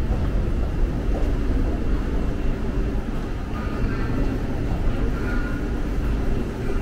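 Seoul subway train running with a steady low rumble, heard in the underground station.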